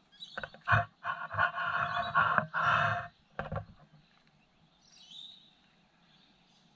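A man's wordless exclamations, several loud vocal bursts in the first three and a half seconds, then quiet with a faint bird chirp about five seconds in.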